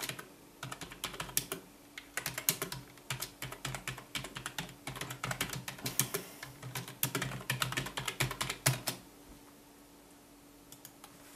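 Typing on a computer keyboard: quick, uneven runs of key clicks for about eight seconds, then the typing stops. A few faint clicks come near the end.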